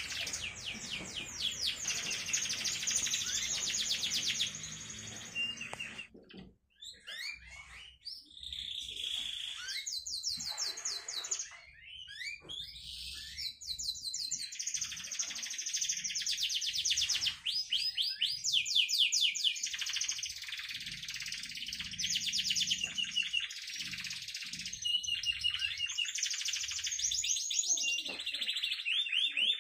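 Young domestic canary, about three months old, singing long rolling trills in rapid phrases, with a short break about six seconds in.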